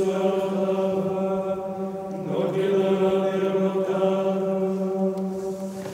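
Outro music in the style of a chant: one low droning note held steadily, with a brief waver in pitch a little over two seconds in.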